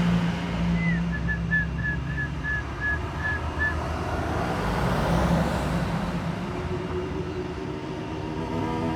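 A dove calling: one short upslurred note, then a run of about ten short, even notes that slow slightly, over a steady low hum of vehicle traffic.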